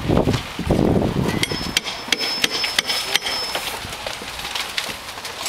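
Roofers hammering on the roof: irregular sharp knocks from more than one hammer, with a low rumble in the first second.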